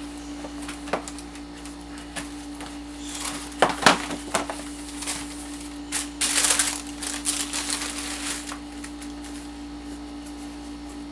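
Sneaker box being handled and opened: scattered knocks and bursts of paper and cardboard rustling, loudest around four seconds in and again at six to seven seconds, over a steady low hum.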